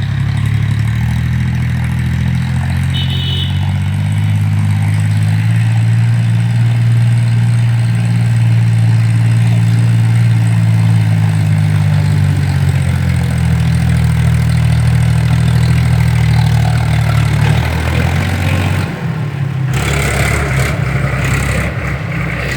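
Tractor's diesel engine running steadily with a low drone, its pitch rising slightly and falling back. A few seconds before the end the drone turns rougher and noisier.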